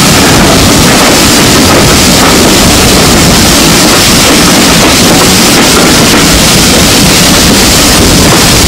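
A moving steam-hauled heritage train heard from an open carriage window: a steady, very loud rush of wind and running noise.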